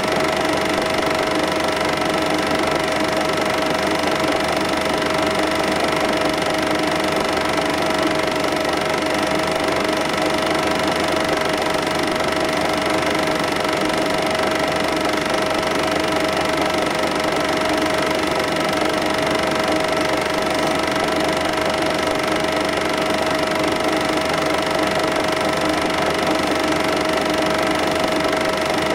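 Cine film projector running: a steady mechanical whirr with a constant high hum that does not change.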